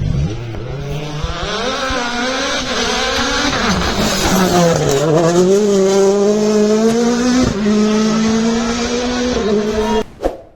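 Rally car engine at high revs, its pitch climbing, then falling sharply about halfway through as the car slows, then climbing again through a gear change before cutting off abruptly near the end.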